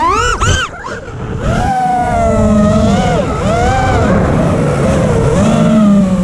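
FPV quadcopter's motors whining, the pitch rising and falling as the throttle is worked. Right at the start there are quick upward sweeps, then a brief throttle cut just under a second in, before the motors spool back up.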